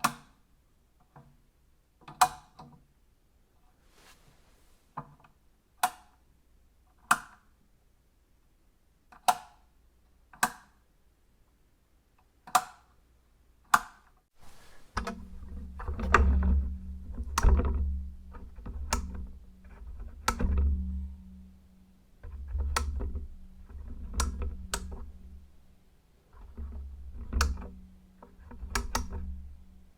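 Switch being flicked on and off, one sharp click about every second. From about halfway a low steady hum that swells and fades runs under the continuing clicks.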